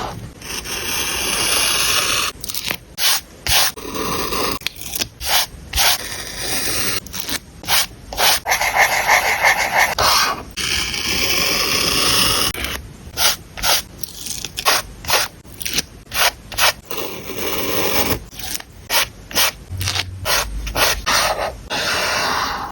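Close-up paper crafting sounds: paper and stickers scraping and rubbing as they are handled and pressed onto a journal page. The sound comes in many short strokes, with a few longer stretches of rubbing.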